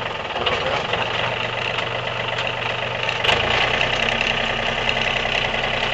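Engine of a sawmill running steadily. About three seconds in there is a sharp knock, and after it the low end of the engine sound grows louder.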